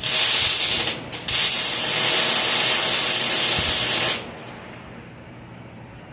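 Loud pressurised hiss: a short burst, a brief break about a second in, then a longer burst of about three seconds that cuts off.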